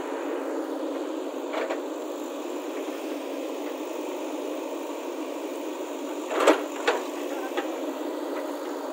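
JCB 3DX backhoe loader's diesel engine running steadily while the backhoe bucket digs into soil and stones, with a few sharp knocks, the loudest about six and a half seconds in and another just after.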